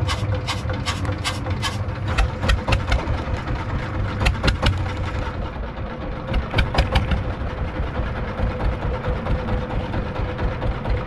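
Fishing boat's engine idling with a steady hum, over a run of sharp ticks, about two or three a second, in the first five seconds and a short cluster again about seven seconds in.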